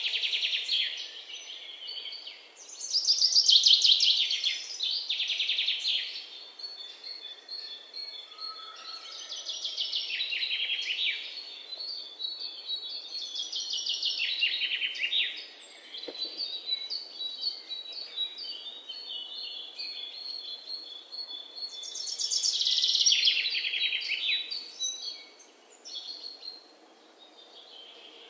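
Small songbirds chirping and trilling in repeated phrases: fast rattling trills alternating with strings of short, even high notes. The trills are loudest about three seconds in and again about twenty-three seconds in.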